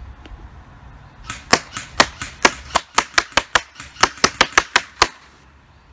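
Airsoft shots: about fifteen sharp snaps in quick, uneven succession, some four or five a second, starting about a second in and stopping near the end.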